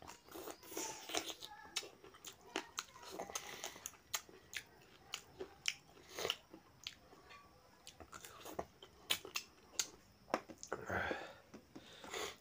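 Close-up eating sounds of a person eating curry and rice by hand: chewing with many short, sharp, wet smacks and clicks, and a longer noisy stretch of mouth sound near the end.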